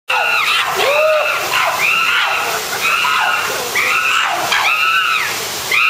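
Chimpanzees screaming in a fight: a continuous run of high, arched screams, about one a second, some overlapping.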